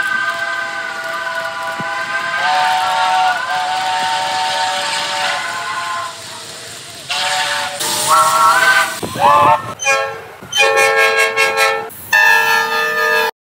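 Train horns sounding a run of long chords of several tones at once, one blast after another with the pitch of the chord changing several times, played back at one and a half times speed so they sound higher. The sound cuts off abruptly near the end.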